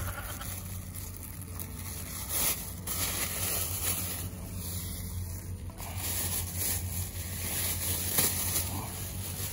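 Thin plastic carrier bag crinkling and rustling in irregular bursts as it is handled and pulled open, over a steady low hum.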